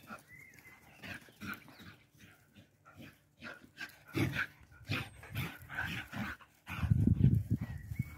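Galgo Españols playing, giving a string of short dog vocalizations at irregular intervals, with a louder, low rumbling burst about a second long near the end.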